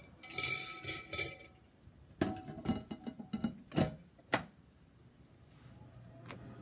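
Ceramic mug and glass bowl of a halogen air fryer being handled: a clatter as the lid comes off, then several clinks and knocks of ceramic on glass as the mug is turned, the last and loudest about four seconds in. Near the end a low steady hum starts as the oven runs again.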